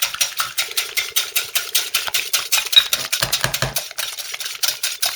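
Egg whites with salt being whisked to a froth in a bowl, the whisk clicking against the bowl in fast, even strokes about eight times a second, stopping abruptly near the end.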